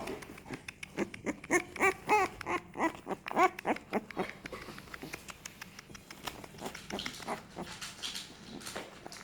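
Young American Staffordshire terrier puppies whimpering in short, high, arching squeaks for the first few seconds. After that comes mostly soft scratching and rustling as they crawl on their bedding, with an odd faint whine.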